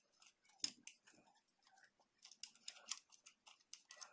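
Light clicks and knocks of Littco No. 165 wood vise parts being handled while the vise is taken apart, with one sharper knock under a second in.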